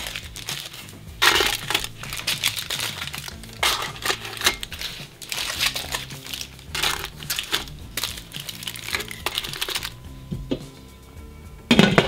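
Aluminium foil crinkling in about five short bursts as it is wrapped and pressed around sausage links, over background music.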